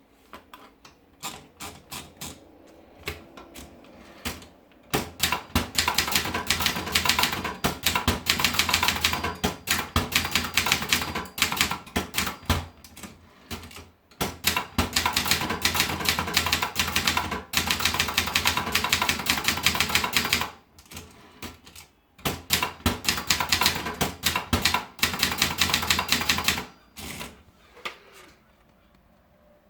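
Brother Deluxe 220 portable typewriter being typed on: a few slow keystrokes at first, then fast runs of typing broken by two short pauses, ending with a few last strokes.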